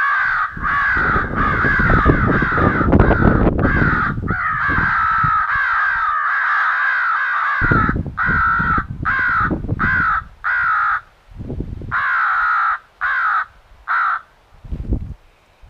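Crow call sounding a fast run of harsh caws, each dropping in pitch, then breaking into short bursts of caws with gaps; it is calling to lure crows in. A low rumble runs underneath in the first half.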